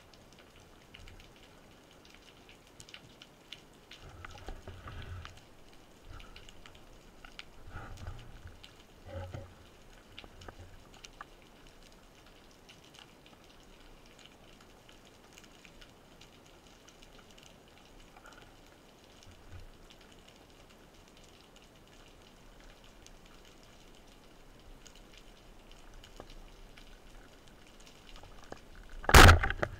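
Faint scattered crackling with a few low thuds, heard underwater. Near the end comes a single loud, sharp crack: a rubber-band speargun firing at a fish.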